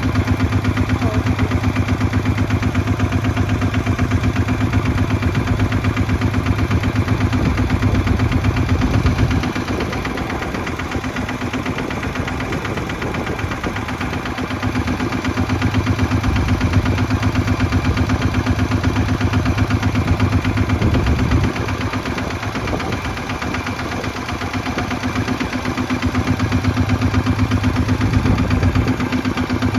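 Kubota ZT155 walk-behind tractor's single-cylinder diesel engine running steadily. About a third of the way in, and again about two-thirds in, it drops lower and quieter for a few seconds, then picks up again.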